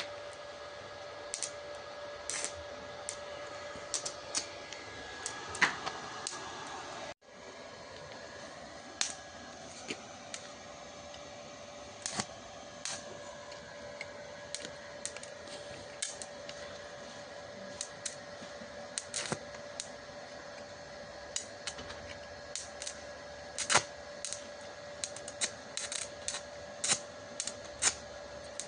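Stick (MMA) welding with a small inverter welder: irregular sharp crackles and snaps from the arc over a steady high hum.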